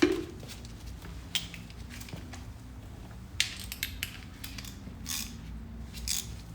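Metal tool clicks and scrapes of an Allen key working the top-cover screws of a rear brake master cylinder, opening with a sharp knock and then a handful of short clicks spread over several seconds.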